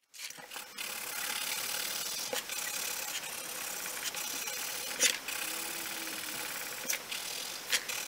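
Coloured pencil shading on paper: a steady scratchy rubbing as the lead is worked back and forth, with a few sharp ticks, the loudest about five seconds in.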